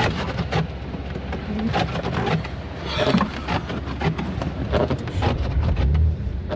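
Rear-wheel-drive BMW M3 Competition creeping through deep snow: irregular crunching and knocking of tyres and snow under the car over a low rumble. The rumble swells from about five seconds in.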